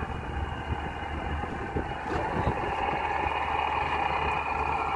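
Rescue boat's engine running steadily, a constant even engine noise with no change in speed.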